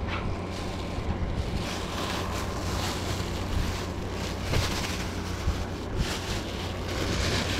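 Plastic bag rustling and crinkling in irregular bursts as it is tied, over a steady rushing noise and a low hum.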